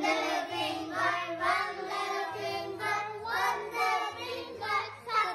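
Children singing a song over a backing track, with low bass notes changing about once a second under the voices.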